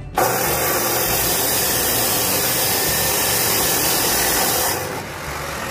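An electric power tool runs loud and steady, starting abruptly just after the start and stopping near the end, after about four and a half seconds.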